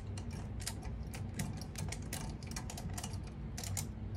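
A 10 mm nut driver tightening a nut, with its lock washer, onto a stud of a metal antenna mount: an irregular run of light metallic clicks, about three or four a second, over a steady low hum.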